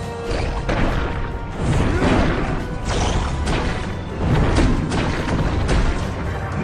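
Dramatic fight-scene music with repeated punch, thud and crash sound effects of a giant hero and monster trading blows.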